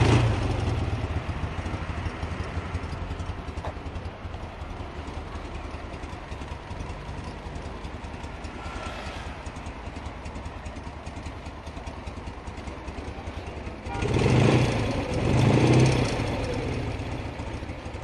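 Vintage 1950s BMW boxer-twin motorcycle engine idling steadily with an even mechanical clatter, then revved twice briefly near the end.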